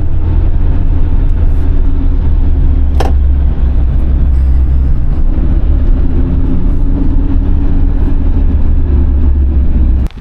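Car driving along: a steady low rumble of engine and road noise, with a single click about three seconds in, cutting off suddenly near the end.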